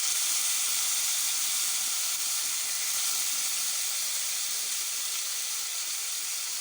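Chicken strips and onions frying in oil in a pan, a steady sizzling hiss that eases off slightly over the seconds.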